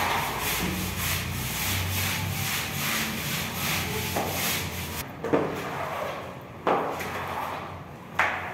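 Long-handled scrub brush scrubbing a wet, soapy floor with cleaner and bleach, in quick back-and-forth strokes at about three a second. In the second half it slows to a few separate, sharper strokes.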